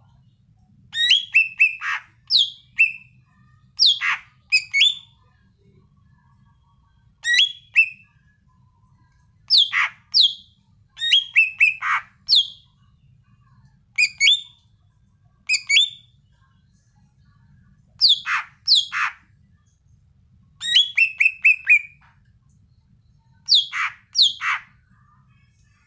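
Green leafbird (cucak ijo) singing loudly: short phrases of sharp, downward-slurred whistled notes, some in quick runs of four or five, repeated every two to three seconds.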